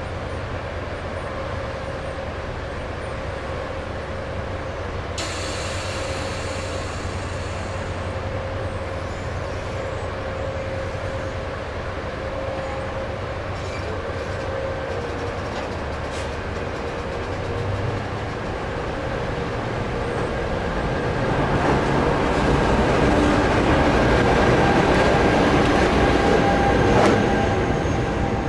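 NJ Transit passenger train running past over the crossing, its wheels rolling on the rail with a few sharp clicks. It grows louder over the last several seconds as the locomotive goes by.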